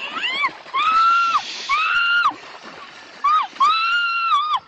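A run of high-pitched, drawn-out squeals from a voice, about five in a row. Each one rises, holds, then falls away at the end.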